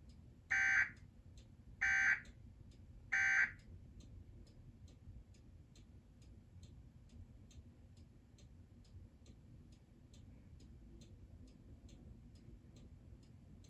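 Emergency Alert System end-of-message signal: three short digital data bursts about 1.3 seconds apart, the coded tones that close the alert. After them, faint steady ticking, about two ticks a second, over a low hum.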